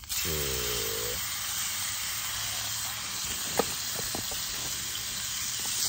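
Wine-marinated meat hitting a hot skillet over a campfire and sizzling: a sudden loud hiss as it goes in, then a steady sizzle, with a light knock about three and a half seconds in.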